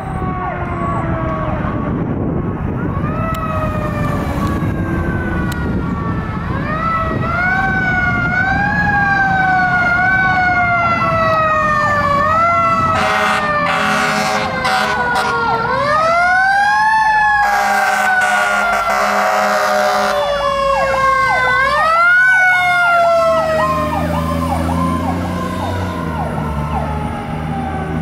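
Fire engine responding with its siren wailing, each sweep rising quickly and falling slowly, over the truck's engine rumble. Around the middle the air horn sounds in several blasts, and a fast pulsing siren tone follows before the wail resumes.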